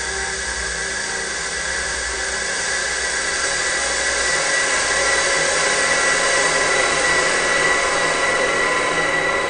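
Film sound-effect drone: a dense hissing rush with a steady high ringing tone on top, swelling louder about halfway through.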